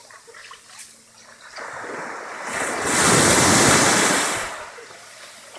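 Sea waves breaking on a sandy beach: the rush of one wave swells about a second and a half in, is loudest around three to four seconds, then fades as the water washes back.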